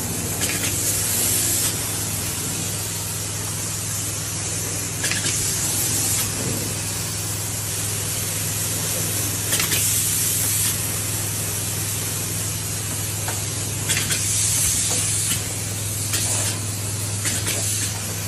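Steady loud hissing spray noise over a low, even machine hum, swelling louder a few times.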